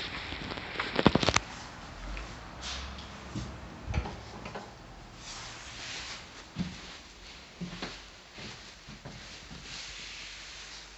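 Scattered clicks and knocks of handling in a small room, with a quick rattling run of clicks about a second in and a dull thump about four seconds in.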